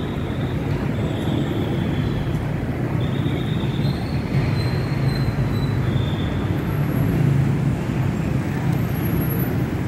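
Steady rumble of busy city road traffic, with a high-pitched squeal that comes and goes several times.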